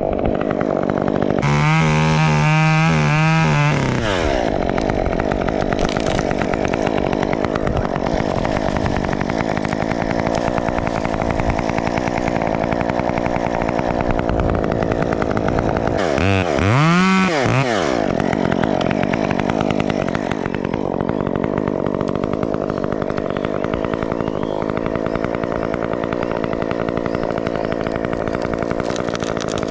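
Chainsaw engine running steadily at idle, revved up twice: once for a couple of seconds about a second and a half in, and again about halfway through, rising and then falling back to idle.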